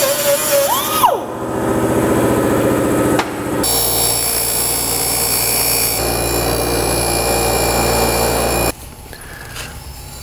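Air-powered cutting tool whining as it cuts through a metal intake tube, its pitch sagging and rising until the cut finishes with a sharp knock about a second in. Then a bench grinder runs steadily as the fresh-cut tube end is ground, stopping a little before the end.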